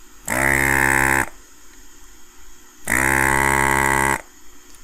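A desoldering gun's vacuum pump runs twice in steady, even-pitched buzzes of about a second each, sucking solder out of a board's through-holes.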